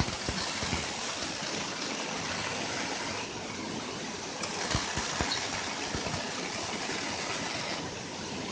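Robotic arc welding: a steady crackling hiss, with a few sharp pops about halfway through.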